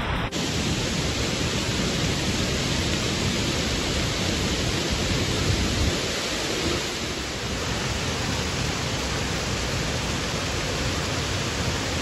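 Fast stream and small waterfalls rushing over rock ledges: a steady, even rush of water, a little softer after about six seconds.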